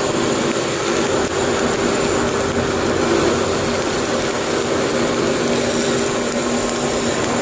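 Steady industrial machinery noise: a constant hum with a few fixed tones under a broad hiss.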